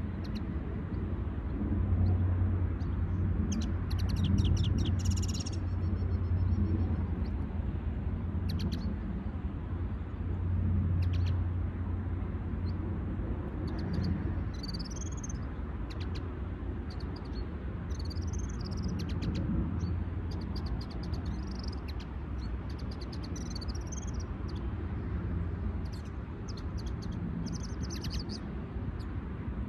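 Small songbirds giving scattered short chirps and calls, with one brief rapid trill about four seconds in, over a louder steady low background rumble.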